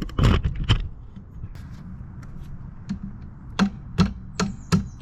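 Rubber hammer knocking on the end of a Honda CBR650R's front axle to drive it out through the fork: a series of sharp knocks, a few loose ones early on and then four strong blows about half a second apart near the end.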